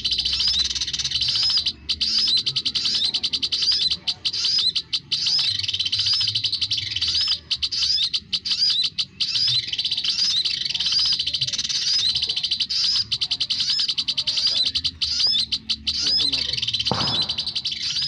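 Olive-backed sunbirds chirping: rapid, high, unbroken chirps that repeat in a steady pattern, the kind of call used as a trapping lure. A short thump comes about a second before the end.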